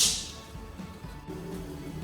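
Quiet background music with faint held tones, after a short hiss at the very start that fades within about half a second.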